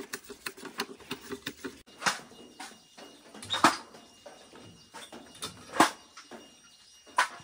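Machete chopping into a bamboo pole: four sharp blows about a second and a half to two seconds apart, with lighter knocks between. Before them, a run of quick light taps on bamboo.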